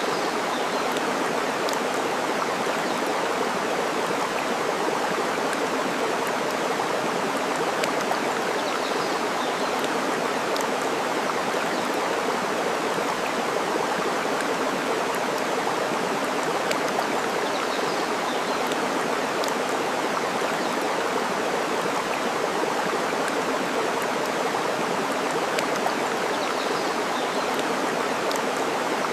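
Steady rush of running water with scattered sharp pops and crackles of burning wood from a campfire.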